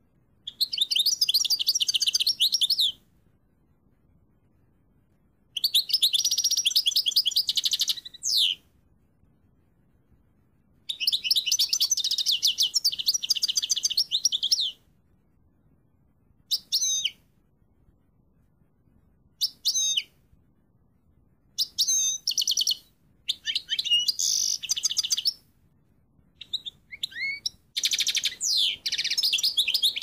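A small finch singing: phrases of fast, high, rolling trills a few seconds long, separated by pauses of one to three seconds. In the second half it shifts to shorter bursts of chirps and sliding whistled notes.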